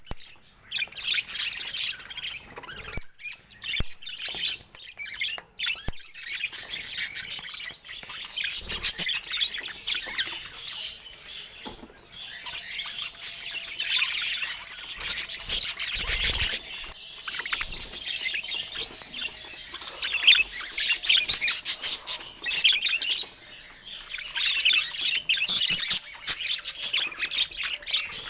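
Budgerigars chattering and warbling without pause, a dense stream of rapid chirps.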